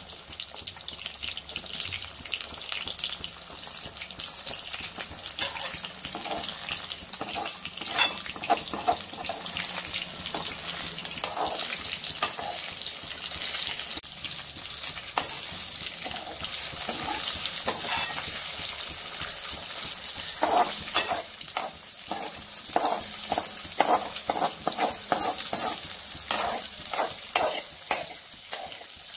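Eggs frying in hot oil in a metal kadai, sizzling steadily, while a spatula scrapes and taps against the pan to scramble them; the scraping strokes come thickest in the last third.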